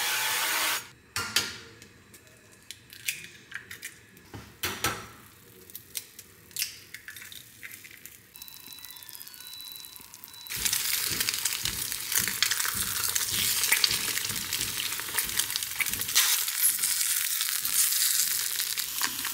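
Two eggs frying in a small ceramic nonstick pan, with a steady sizzle from about halfway through. It is preceded by a short hiss of cooking spray into the pan at the start and a few knocks and taps as the eggs are cracked in.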